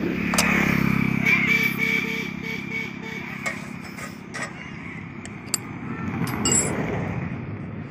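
A motor engine running steadily, loudest over the first couple of seconds and then easing off, with a few sharp metallic clicks.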